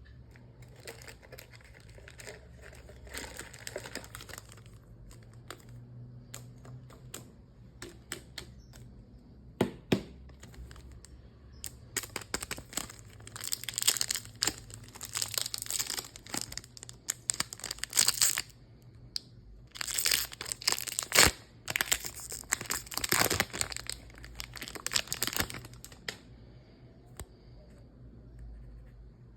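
Pokémon card packaging crinkling and tearing as it is opened by hand, in two long bouts of crackling with a sharp click before them.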